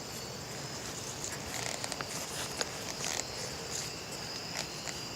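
A steady, high-pitched outdoor insect chorus, with a scattering of light clicks and crackles, most of them about two seconds in.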